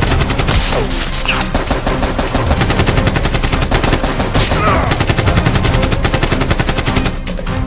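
Rapid automatic gunfire: an unbroken stream of many sharp shots a second, thinning and quietening near the end.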